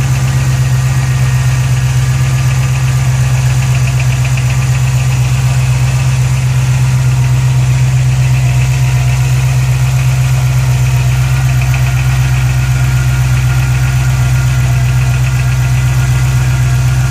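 A Ford GT500's engine idling steadily after a cold start, with a rapid light ticking running through the idle.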